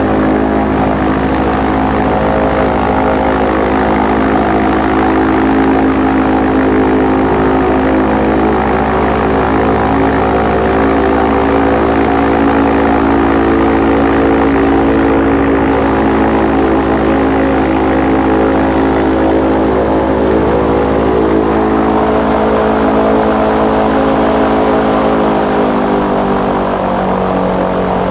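Airboat's engine and air propeller running steadily under way, a loud continuous drone. About three-quarters of the way through, the pitch drops as the boat throttles back.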